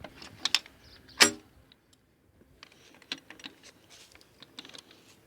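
Metal clinks and taps of tools and engine parts being handled during engine assembly: a few sharp clicks, one louder ringing clank about a second in, then a scatter of lighter ticks and taps.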